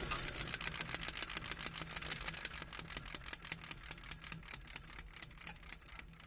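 Rapid, evenly spaced mechanical clicking, several clicks a second, over a low hum, fading out gradually.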